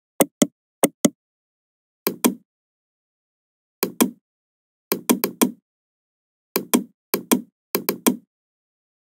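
Computer mouse clicks, sharp and dry, about nineteen in all, mostly in quick pairs like double-clicks and a few runs of three or four, with dead silence between them.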